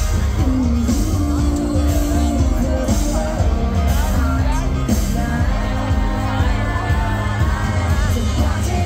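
Live country band with a female lead vocalist singing into a microphone over electric guitar and drums, heard loud through the concert PA from within the crowd.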